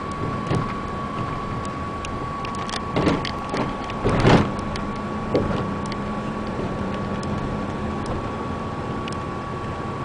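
Steady road and engine noise from a moving vehicle, with a constant high whine, and several brief louder noises about three to five seconds in, the loudest just after four seconds.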